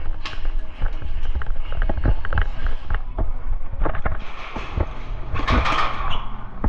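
Airsoft game sounds: scattered, irregular sharp clicks and pops over a steady low rumble of movement and handling noise, with a rush of hissing noise from about four seconds in.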